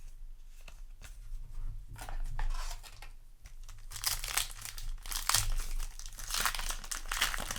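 Foil booster-pack wrapper crinkling and tearing as a Yu-Gi-Oh! card pack is handled and ripped open, sparse at first and busier and louder from about four seconds in.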